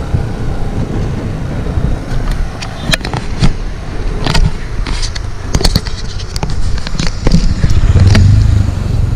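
A motorcycle passes close by, its engine getting loudest near the end, over a steady low road rumble with scattered sharp clicks.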